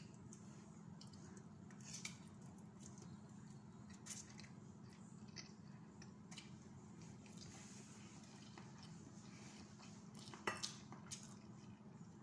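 Faint sounds of eating instant noodles: quiet chewing, with a few soft clicks of metal forks against a ceramic plate, the loudest a little over ten seconds in.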